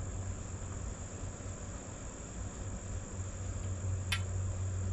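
A steady high-pitched trill over a low steady hum, with one sharp click about four seconds in.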